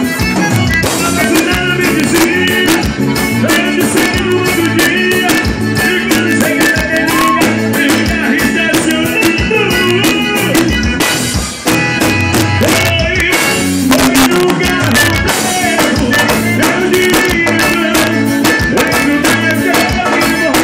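Live forró band playing through a PA: accordion, electric bass, drum kit and congas, with a singer on a hand-held microphone. The music breaks off for an instant a little past the middle, then carries on.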